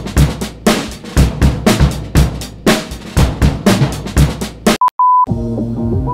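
Intro music with a hard drum-kit beat, kick and snare about twice a second. Near the end the beat cuts out and a short, steady electronic test-tone beep sounds, broken once by a brief dropout. Then a softer music track with held notes begins.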